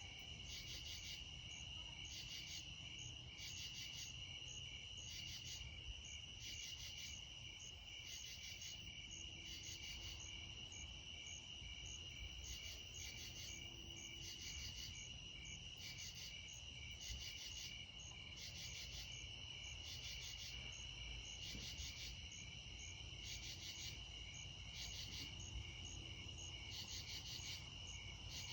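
Summer night insect chorus: crickets trilling in one steady, unbroken high note, with a second chorus of higher pulsed chirps repeating about once a second.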